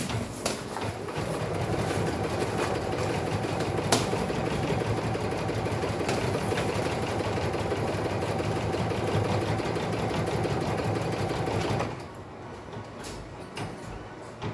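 Brother Innovis BP2150L embroidery machine stitching a placement outline, its needle running at a fast, steady pace. It stops abruptly about twelve seconds in, and a few light clicks follow.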